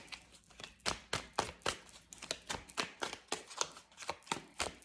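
Tarot cards being shuffled by hand: a rapid, irregular run of sharp card clicks and slaps.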